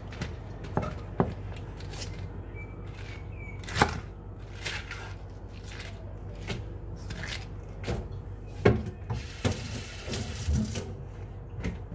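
Irregular clicks and knocks of cabbage leaves being handled and cut on a wooden cutting board, with two sharper knocks about four and nine seconds in, followed by a brief hiss.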